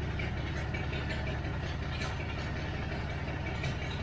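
Freshly rebuilt engine of a 1979 Chevrolet Caravan idling steadily on its first run, a constant low running sound with faint light ticks.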